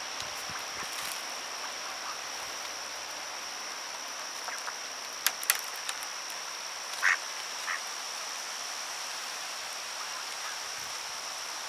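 Mallards feeding: two sharp clicks a little past halfway, then a short quack about seven seconds in and a fainter one just after, over a steady high-pitched background tone.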